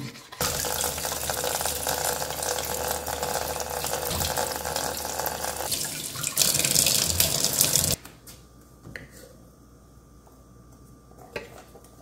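Kitchen tap running into a sink for about seven seconds, the splashing louder and brighter for its last second or so before it shuts off. Then a faint steady hum with a couple of light clicks.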